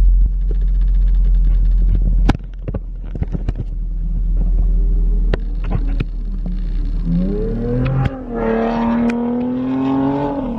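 A drift car's engine revving hard, its pitch climbing over a few seconds and then held high before easing off near the end. A loud low rumble fills the first two seconds, and sharp clicks are scattered throughout.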